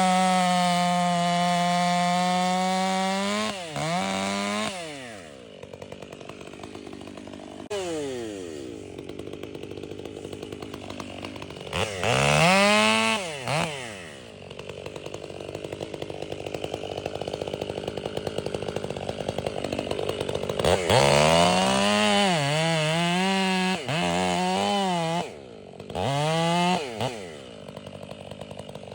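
Stihl MS 500i fuel-injected two-stroke chainsaw held at full throttle for about three seconds, then dropping to a pulsing idle, with several short bursts of revving later on.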